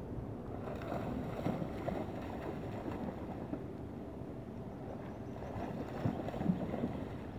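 Steady rush of river water with wind buffeting the microphone, and a few brief splashes as a dog bounds through the shallows, the loudest about 6 seconds in.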